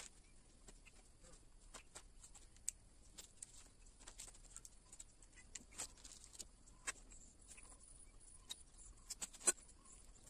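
Faint, scattered light clicks and taps of small tools and engine parts being handled during scooter engine assembly, with a sharper click about nine seconds in.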